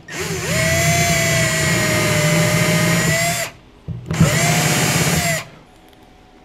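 Milwaukee cordless drill/driver running under load in a wooden block as a piece is fastened with a screw: one steady motor whine of about three and a half seconds, then a shorter run of about a second and a half.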